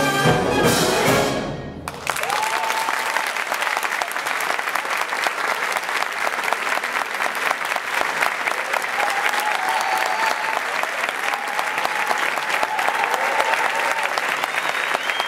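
A symphonic wind band's final chord, coloured by mallet percussion, rings out and fades over the first two seconds, then the audience applauds steadily.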